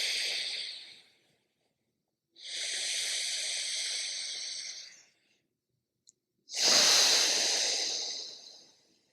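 Slow, audible breaths drawn in and out through one nostril during alternate-nostril breathing: one breath fading out about a second in, another of about three seconds in the middle, and a louder one near the end.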